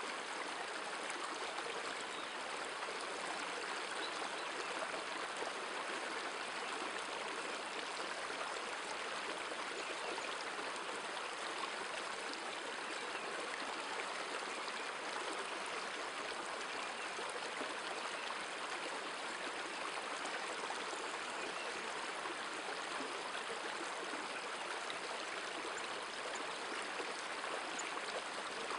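Shallow river water running steadily over a stony bed, an even rushing sound that stays at one level throughout.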